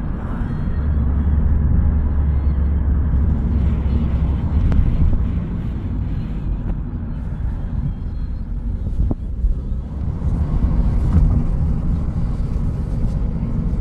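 Car running with a steady low rumble of engine and road noise, with a stronger low drone for a few seconds about a second in.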